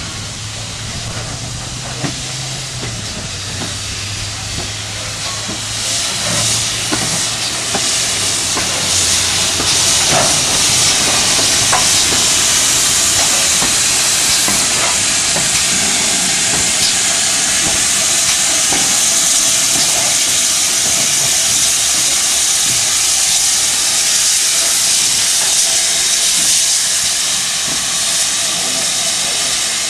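Steam locomotive hissing steadily, from GWR 4-4-0 No. 3440 City of Truro; the hiss builds about six seconds in and stays loud, with a low steady drone underneath for the first dozen seconds.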